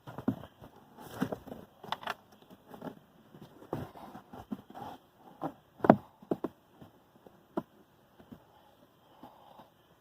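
Hands working a plastic car glove box, reattaching the glove box damper string to its clip on the side of the box. Scattered clicks, knocks and rustles, with the loudest knock about six seconds in.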